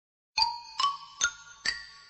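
A short bell-like chime tune: four struck notes, each ringing and fading, rising in pitch step by step about every half second, coming in a moment after a brief silence.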